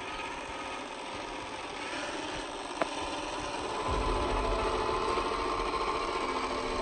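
Electric motor and geared drivetrain of a Boom Racing BRX01 Toyota Land Cruiser LC70 1/10-scale RC crawler whining as it drives. There is a single sharp click about three seconds in, and the whine grows louder about four seconds in.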